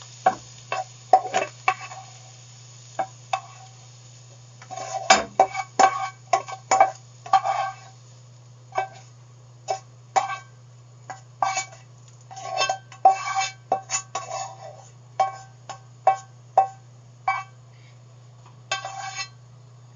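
A metal utensil scraping and clinking against a pan as sautéed mushrooms are spooned out into a dish, in many short irregular knocks that leave a brief metallic ring. A faint sizzle from the pan dies away in the first few seconds.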